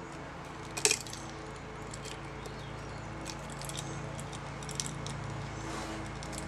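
Small metallic clicks and taps from the governor and fittings of a Victor phonograph spring motor being handled by hand, with one sharper click about a second in, over a faint steady hum.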